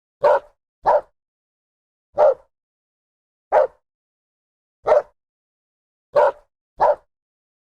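A dog barking: seven short single barks, with a quick pair at the start and another pair near the end, and dead silence between them.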